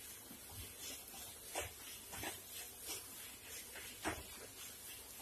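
Wooden spatula knocking and scraping against a nonstick kadai while stirring grated bottle gourd frying in ghee. There are soft, irregular knocks about once every half second to a second, the loudest about four seconds in, over a faint steady hiss.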